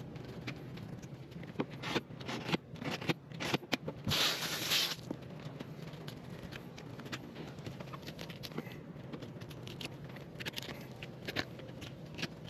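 Fillet knife cutting along a grouper's back and bones, a run of sharp scraping clicks over the first few seconds. A loud hiss lasting about a second comes just after four seconds in.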